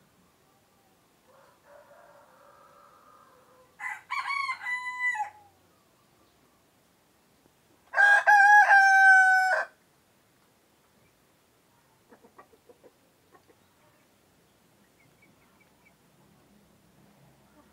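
Roosters of an egg-laying breed (ayam pejantan) crowing. A faint crow comes first, then a louder one about four seconds in, and the loudest, lower-pitched crow of under two seconds about eight seconds in. A few faint clucks follow.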